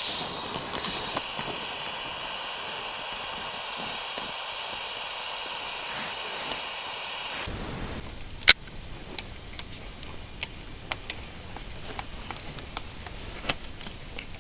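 A steady hiss that cuts off abruptly about seven and a half seconds in. It gives way to a quieter background with scattered small clicks and one sharp click about a second later.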